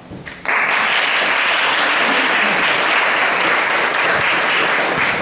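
Audience applauding, starting abruptly about half a second in and holding steady.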